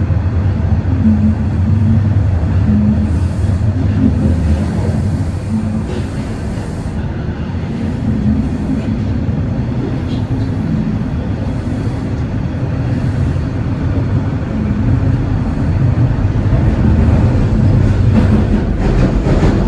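Toronto Rocket subway train running in the tunnel, heard from inside the car: a steady loud rumble of wheels and motors with a low hum. It eases slightly in the middle and builds again near the end.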